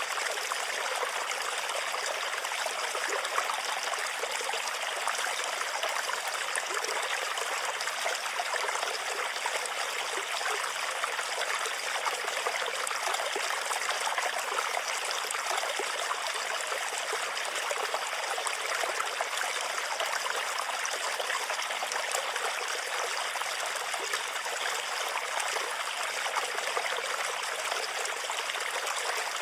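Running water of a stream flowing and trickling steadily.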